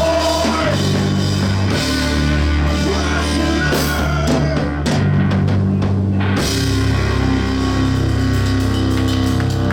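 Loud heavy rock music: a drum kit with guitars over held bass notes that change about once a second, the cymbals dropping out briefly past the middle.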